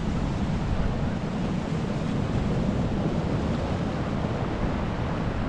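Waves breaking on a shingle beach, mixed with steady wind noise on the microphone.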